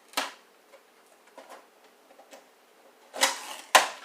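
Packing tape being peeled off a new printer's plastic casing: a short rasp right at the start, a few faint ticks, then two louder rasps near the end.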